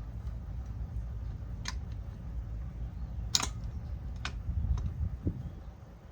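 Four or five sharp clicks a second or so apart over a steady low rumble.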